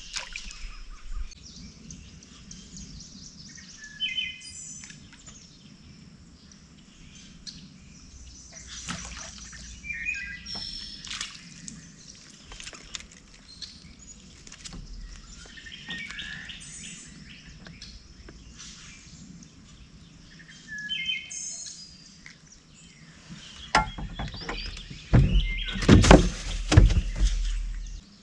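Songbirds chirping and calling repeatedly, with a cluster of loud knocks and rattles near the end.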